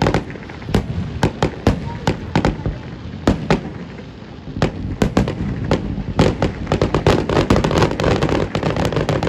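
Aerial fireworks bursting: a string of sharp bangs, turning into a fast, dense run of bangs and crackles about six seconds in.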